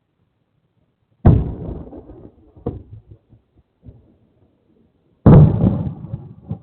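Aerial fireworks bursting: two loud booms about four seconds apart, each followed by a rumbling echo that dies away, with a couple of fainter pops between them. Heard through a small outdoor security camera's microphone, so the sound is dull with no high end.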